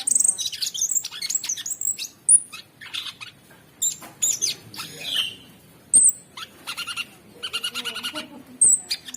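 Cucak sungkok singing a fast, varied song: quick high chirps, short whistled sweeps and rattling, buzzy phrases, tumbling one after another with only brief pauses.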